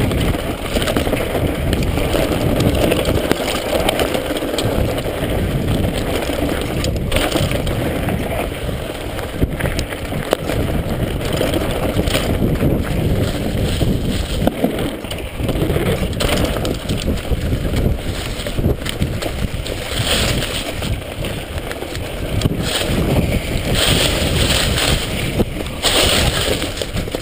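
Mountain bike descending a rough dirt trail, heard through an on-board GoPro Hero HD: a steady rumble of wind and tyres on dirt and dry leaves, with scattered knocks and rattles from the bike over bumps.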